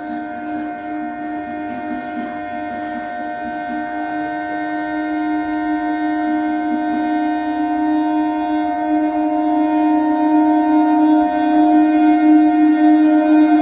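Electric multiple unit train's horn sounding one long, unbroken blast at a steady pitch, growing steadily louder as the train approaches at speed.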